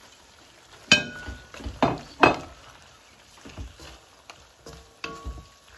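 A wooden spatula knocking vegetables off a plate into a metal pot: a sharp ringing clink about a second in and two more knocks about a second later, followed by lighter knocks and scrapes as the vegetables are stirred in.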